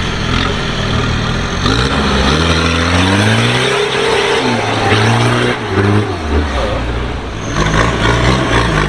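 Off-road 4x4's engine revving under load: the pitch climbs from about two seconds in, rises and falls through the middle, then drops back to a steady run near the end.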